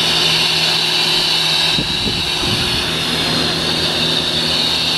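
Steady hiss of radio static with a faint low hum underneath, and a brief low rumble about two seconds in.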